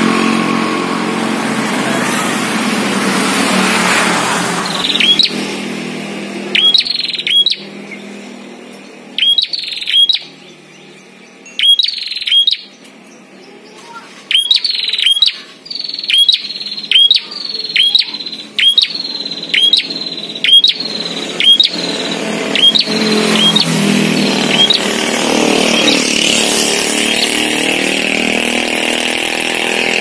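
Prinia (prenjak) calling: a long run of short, sharp high notes, each falling in pitch, coming one or two a second. A passing motor vehicle is heard at the start, fading within a few seconds, and again near the end.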